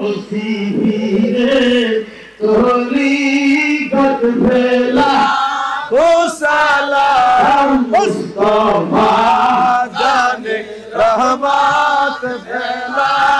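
A man chanting a Bengali zikir, a devotional chant in remembrance of God, with long held notes that bend up and down and a short break about two seconds in.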